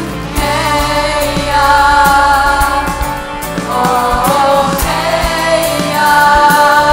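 Live gospel choir singing long held notes over instrumental accompaniment with a regular beat.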